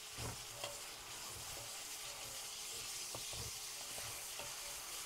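Sliced red onions and peppers sizzling steadily in butter and olive oil in a frying pan, stirred with a wooden spatula that scrapes and knocks against the pan every so often.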